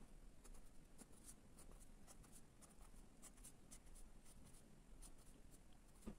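Pen scratching on paper in quick, short strokes as arrows are drawn, faint. There is a soft low bump near the end.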